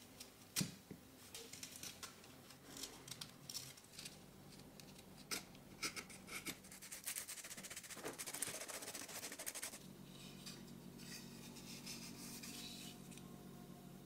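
Small hand tools working wood: a knife cutting and scraping a wooden strip with sharp little clicks, then a stretch of dense rubbing, like sandpaper on a wooden edge. A faint steady hum comes in from about ten seconds in.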